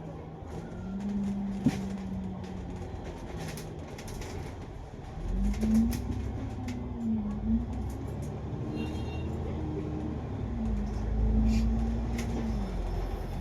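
Double-decker bus engine running under way, its note rising and falling several times as the bus speeds up and slows, with scattered clicks and rattles.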